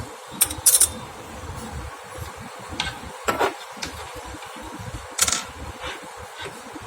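Small metal parts of a concealed cabinet hinge being handled and fitted: a scatter of sharp clicks and light knocks, a short clatter about three and a half seconds in, over a steady background hum.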